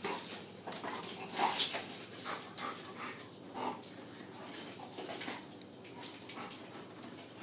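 Black Labrador puppy playing with a toy on a tile floor: a run of quick clicks and knocks from the toy and its claws on the tiles, with a few short whines.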